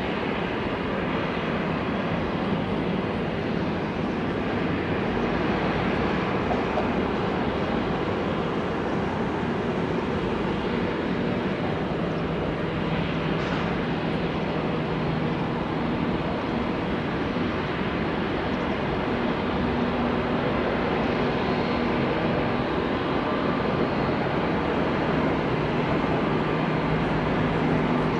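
Steady jet engine noise from an Airbus A380-800 airliner, with a few faint steady tones, holding an even level throughout.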